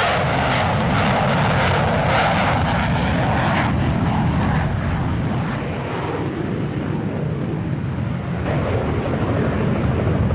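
Jet engine of the Boeing X-32 fighter demonstrator running steadily, a continuous rumble with hiss above it. The hiss drops away sharply about four seconds in.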